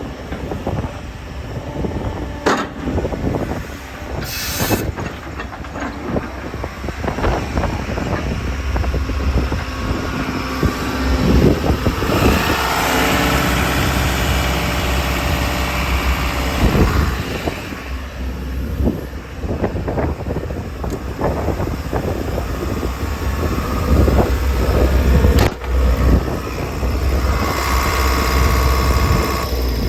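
JCB JS160LC tracked excavator's diesel engine running while the machine works, louder and fuller in two stretches about twelve and twenty-four seconds in, with scattered knocks and clanks throughout.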